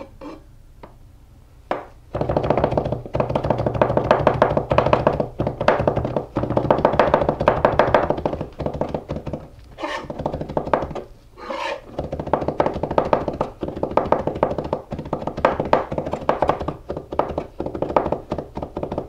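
Santoku knife rapidly chopping garlic on a plastic cutting board: a fast, even run of knife taps that starts about two seconds in, with a short pause about halfway through.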